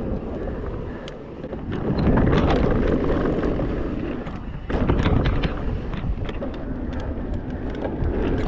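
Mountain bike riding fast down a dirt trail: knobby tyres rumbling over the dirt, with sharp clicks and rattles from the bike. The noise dips about a second in, swells again, and jumps louder suddenly about halfway through.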